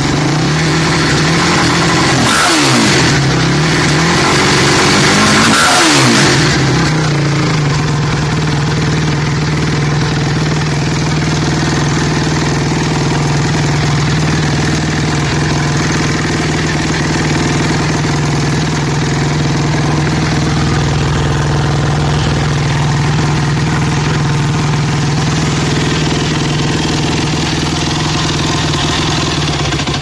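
Yamaha YFZ450 ATV's single-cylinder four-stroke engine running at idle, blipped twice in quick up-and-down revs in the first six seconds, then idling steadily.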